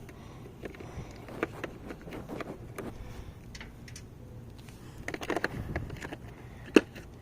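Irregular light metal clicks and clinks of hand tools as sockets are tried on the riding mower's belt-guard bolts, with a busier run of clinks about five seconds in and one sharp click near the end.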